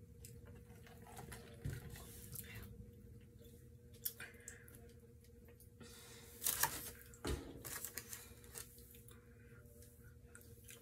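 Close-miked eating sounds: sipping through a straw, then rustles and clicks from handling food and a ranch dip cup, loudest in a cluster about six to eight seconds in, and a bite of a fry dipped in ranch near the end. A faint steady hum runs underneath.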